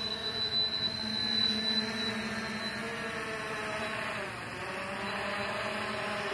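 DroneTech Poseidon Pro Black 2 quadcopter's motors and tri-blade propellers humming steadily as it climbs from a low hover. About four seconds in the hum briefly drops in pitch, then rises again.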